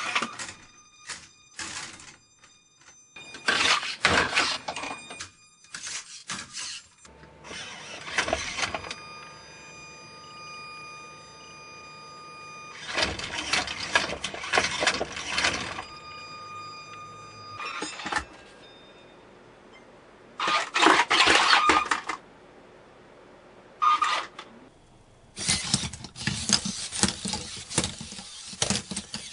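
Hobby servo motors in small aluminium gymnast robots whirring and whining in repeated bursts as the robots swing through their routines, with rattling and knocking of the metal frames against the apparatus. Between bursts thin steady servo whines hold on.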